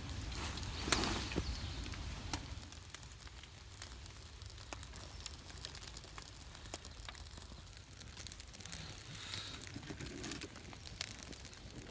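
Small fire of birch bark, wood shavings and thin twigs crackling with scattered sharp pops as it just catches in damp tinder, with a brief louder rustle about a second in.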